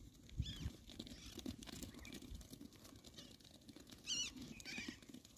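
Faint pattering and rustling of a sheep trotting over dry grass and dirt, with a few short high-pitched wavering calls, the clearest about four seconds in.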